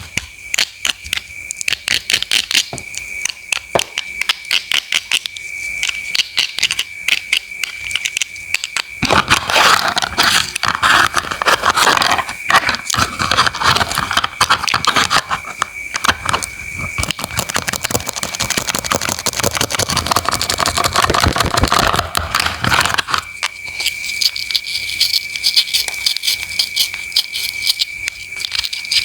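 Knife cutting crisp fruit and vegetables, a fast run of crunchy slicing strokes that grows louder and fuller for a stretch in the middle before thinning out again. A steady high tone runs beneath it.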